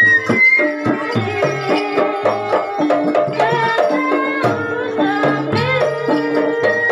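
Kuda lumping music: a Javanese traditional ensemble of hand drums and pitched percussion playing a steady, busy rhythm.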